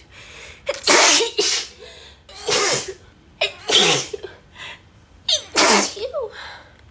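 A woman sneezing several times in quick succession, each sneeze a loud spoken "achoo" used to hold back a harsher sneeze.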